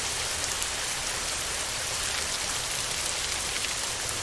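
Steady heavy rain drumming on a tin roof: a dense, even hiss of drops with individual hits ticking through it.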